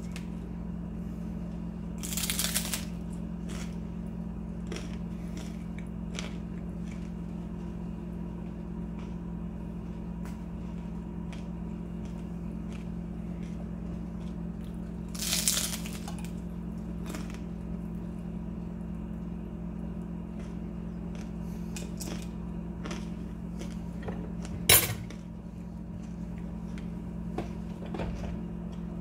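A plate and a taco being handled: brief noises about two seconds in and again about halfway, and a sharp clack a few seconds before the end, over a steady low hum.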